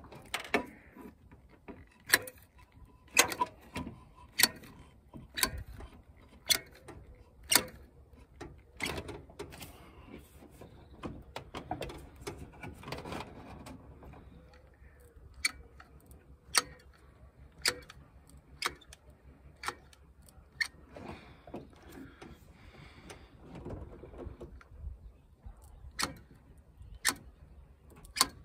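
Hand caulking gun clicking as its trigger is squeezed over and over, about once a second, pushing adhesive out of the cartridge. It stops for a few seconds twice along the way.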